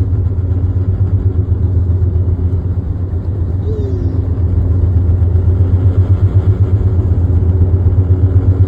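A car driving on tyre snow chains. It makes a loud, steady, low rumble that pulses quickly and regularly.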